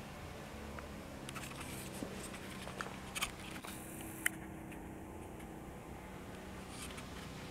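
Faint licking and rasping of a long-haired cat grooming its fur: a scatter of small clicks and scratchy ticks over a low steady hum.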